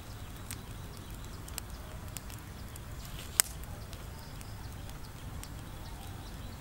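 Scattered sharp crackles and clicks from a charcoal fire and a bamboo spit turning a whole chicken in its wooden forks, with one louder snap about halfway through, over a low steady rumble.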